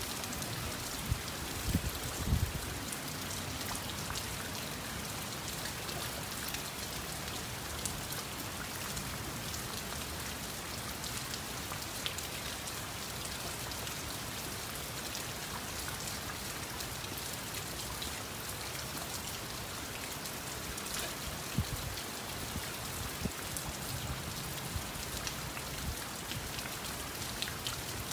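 Steady rain falling and pattering on a surface, an even hiss with scattered drop hits. A few low thumps stand out near the start and again about three-quarters of the way through.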